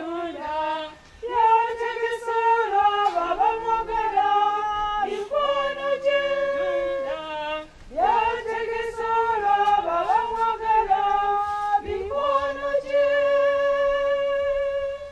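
Choir singing a hymn unaccompanied, several voices in harmony moving in held notes, with short breaks between phrases. The last note is held for about three seconds before the singing stops.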